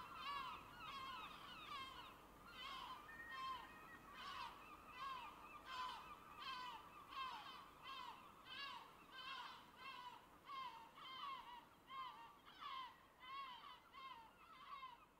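Gulls calling: a steady run of short, down-slurred cries, roughly two a second, faint, tapering off near the end.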